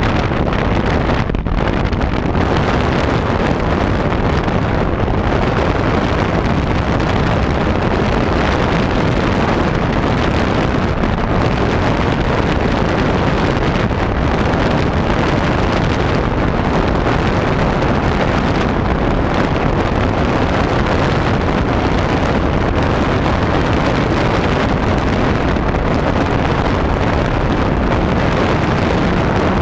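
RC model airplane's motor running steadily in flight, heard from on board, with heavy wind rushing over the microphone.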